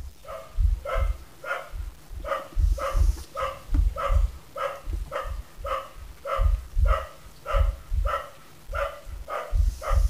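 A dog barking over and over in a steady rhythm, about two barks a second. Heavy low thumps run underneath.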